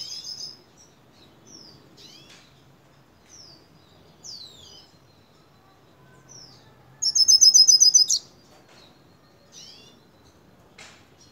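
Young hooded siskin singing: scattered short chirps and quick rising whistled notes, with a loud rapid trill lasting about a second about two-thirds of the way through.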